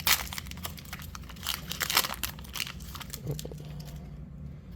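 Wrapper of a basketball trading-card pack being torn open and crinkled: a run of crackles over the first three seconds, two of them louder, then quieter handling.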